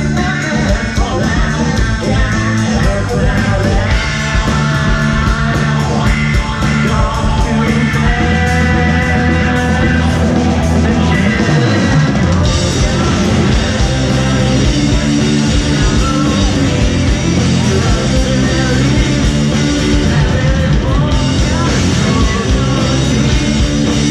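A rock band playing live and loud, with a steady drumbeat. The cymbals grow brighter about halfway through.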